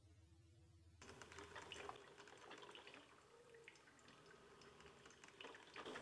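Drip coffee maker brewing: faint gurgling and dripping of hot water, starting about a second in.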